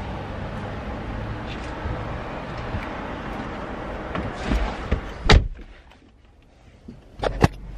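Steady open-air noise coming through an open car door, then the car door slamming shut about five seconds in, after which it goes much quieter. A sharp click and a low hum follow near the end.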